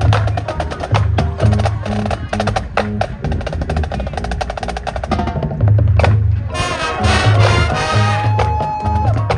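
High school marching band playing its field show: many sharp percussion strikes over low held chords, with a high tone sliding up and holding near the end.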